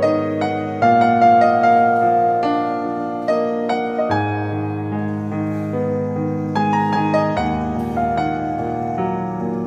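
Background piano music, a gentle melody over held chords.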